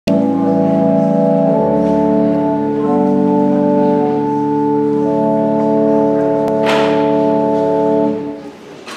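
Church organ playing slow, sustained chords that change a few times, then released about eight seconds in, the sound dying away in the hall's reverberation. A brief noise sounds shortly before the chord ends.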